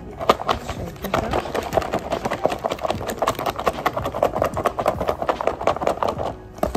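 Lidded plastic salad container shaken hard in both hands, the salad rattling and clattering inside in a fast, even rhythm that stops near the end.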